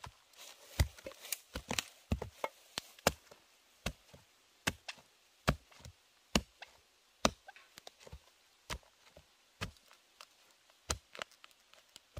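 A blade chopping with sharp, separate strokes. There is a quick cluster of strokes at first, then a steady rhythm of single chops a little under a second apart, with lighter taps between some of them.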